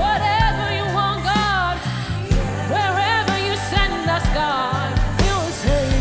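Live gospel worship song: a woman's lead voice sings flowing, ornamented runs with vibrato over band accompaniment of sustained bass notes and drum beats.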